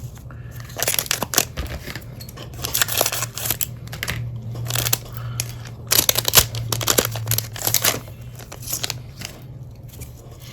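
Crinkling, rustling and tearing of trading-card packaging and cards being handled by hand, in irregular bursts, over a steady low hum.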